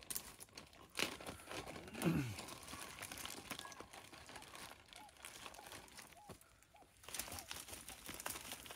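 Collapsible wire-framed crab pot with mesh netting being handled and pulled open: scattered light clicks and rustling of the wire and netting.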